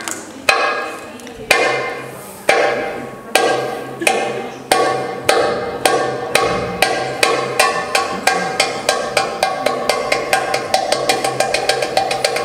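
Tabla drum played solo in an improvisation: single ringing strokes about a second apart that speed up steadily into a fast, dense rhythm.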